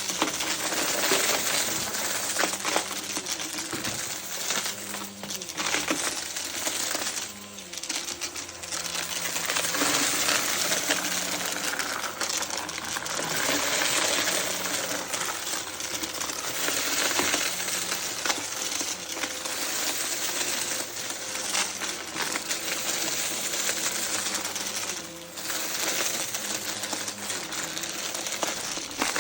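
Miele Blizzard bagless vacuum cleaner running steadily, with a dense stream of small clicks and rattles as hard bits of debris are sucked up. The sound drops briefly twice.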